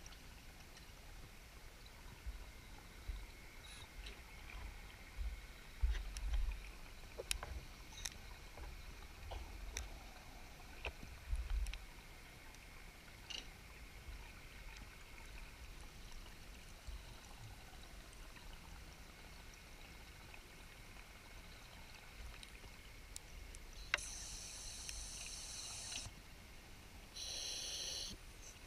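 Muffled underwater sound of a scuba dive in a cave: scattered low knocks and clicks in the first half, then two hissing bursts of breathing through the regulator near the end.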